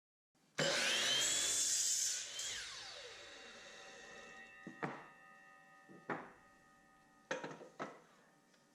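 Miter saw starting and cutting through a wooden board for about a second and a half. Its blade then winds down with a falling whine and fading ring. A few sharp wooden knocks follow as the cut pieces are handled.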